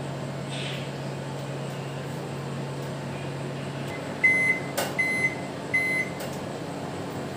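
IFB convection microwave oven running on its microwave-grill setting with a steady hum that stops about four seconds in as the cooking cycle ends. Three short high beeps follow to signal that cooking is done.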